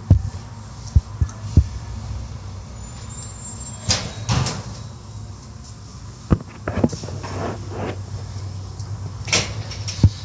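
Automatic tunnel car wash running, heard from inside a car going through it. A steady low hum runs under sharp knocks and a few swishing rushes.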